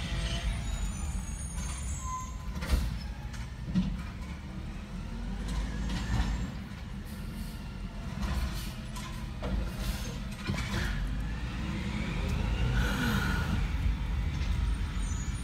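Wayne automated side-loader garbage truck running while its arm lifts a curbside cart and dumps it, with several loud bangs of the cart and lid. A short air hiss comes near the end.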